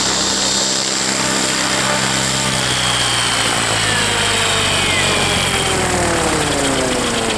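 Electric-converted Align T-Rex 700 RC helicopter's motor and rotor blades whirring at speed, then spooling down after landing, the whine falling steadily in pitch from about three seconds in.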